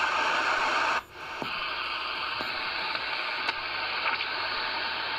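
Magnum Omegaforce S45 CB radio's speaker giving out steady receiver hiss and static while tuned on the 11-metre band with no station on frequency. The hiss drops out briefly about a second in, and a couple of faint clicks come later.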